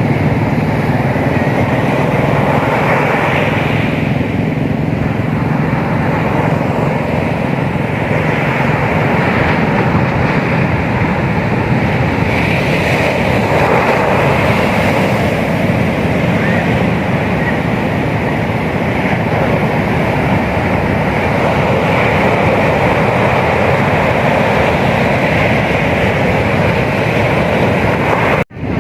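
Ocean surf breaking on a beach in a steady, loud roar, with wind on the microphone; the sound briefly cuts out near the end.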